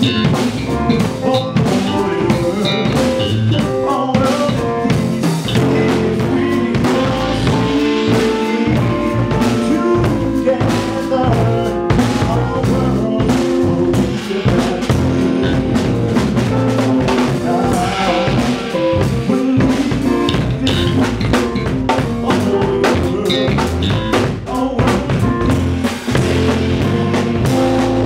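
A jazz trio playing together: electric bass, keyboard and drum kit, with the drums' snare, rimshots and bass drum prominent over the bass and keyboard lines.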